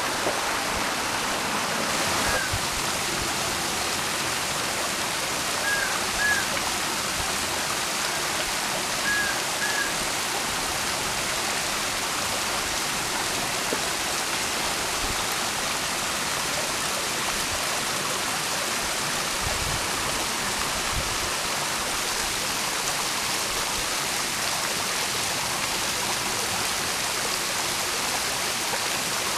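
Small seasonal waterfall running down a granite rock face into a shallow pool: a steady rushing hiss of falling water. A few brief high chirps come through in the first ten seconds.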